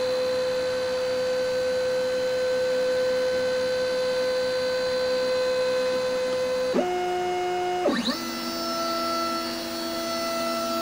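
X-Carve CNC stepper motors whining steadily as they drive the gantry along the Y axis. The whine changes pitch suddenly about seven seconds in, and again about a second later.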